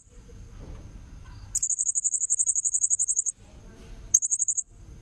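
Blue-crowned hanging parrot (serindit) calling in shrill, rapid, high-pitched trills: one long bout of about a second and a half starting a second and a half in, and a short burst near the end.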